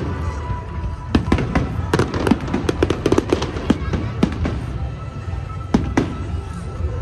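Fireworks display going off: clusters of sharp bangs and crackles every second or so, over a steady low rumble, with music in the background.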